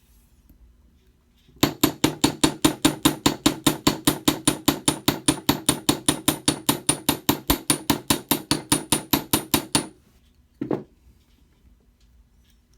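Chasing hammer striking 12-gauge brass wire on a steel bench block in a fast, even run of about five blows a second for some eight seconds, followed a moment later by one single knock.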